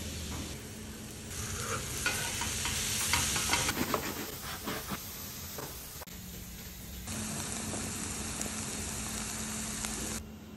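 Chopped mushrooms sizzling and frying in a cast-iron skillet as they are stirred, with scattered clicks and scrapes through the middle.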